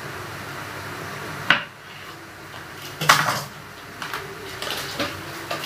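Kitchen utensils and cookware knocking and clattering: a sharp knock about a second and a half in, a louder metallic clatter around three seconds in, then a few lighter clicks, over steady background noise.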